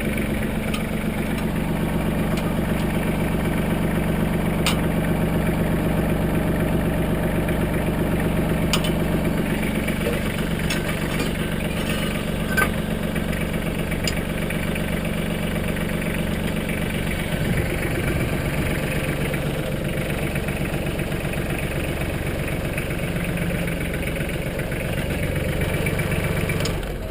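Mahindra Max 25 compact tractor's diesel engine running steadily, with a few sharp clicks over it. The engine note shifts about two thirds of the way through.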